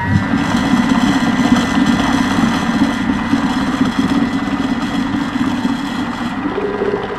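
Thermomix TM5 motor running at speed 5, its blades mixing a full bowl of chocolate cake batter with freshly added flour: a loud, steady whir, with a change in tone about six seconds in.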